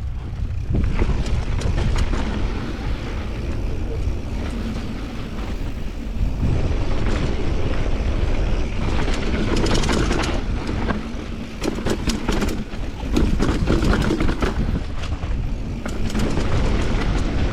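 Mountain bike riding down a dirt bike-park trail: wind buffeting the microphone as a steady low rumble, with tyres crunching and the bike rattling and clicking over bumps.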